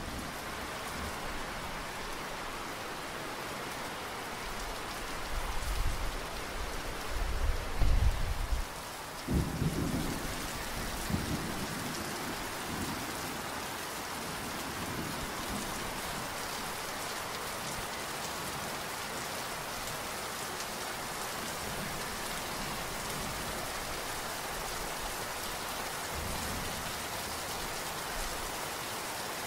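Steady rain falling, an even hiss. A few seconds in, a low rumble of thunder rolls for several seconds and fades away before the halfway point, while the rain carries on unchanged.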